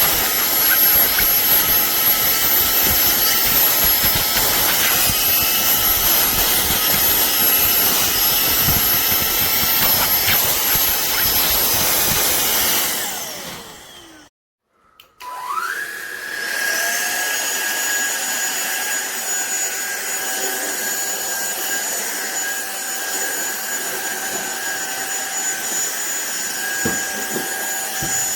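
Cordless stick vacuum cleaner's motor running with a steady high whine, then switched off about halfway through and winding down to silence. A second later it starts again, rising quickly in pitch and settling into a steady whine on a somewhat different note.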